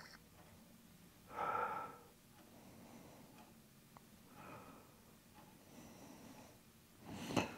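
A person breathing out audibly through the nose, a short breath about a second and a half in and a fainter one a few seconds later. A sharp tap or knock near the end is the loudest sound.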